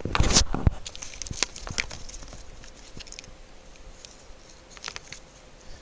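Unboxing handling of packaging and small items: a loud rustle in the first half-second, then scattered clicks and light taps.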